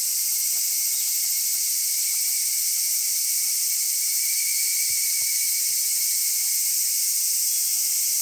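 Steady, high-pitched chorus of insects, with higurashi cicadas singing among them.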